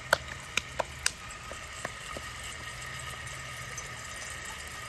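Dove breasts frying in shallow vegetable oil in a cast-iron skillet: a steady sizzle with sharp pops of spitting oil, four in the first second or so, then a few fainter ones.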